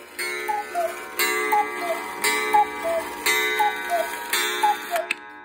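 Cuckoo clock calling the hour on its freshly repaired bellows: five two-note cuckoo calls, high then low, about one a second, each just after a ringing strike.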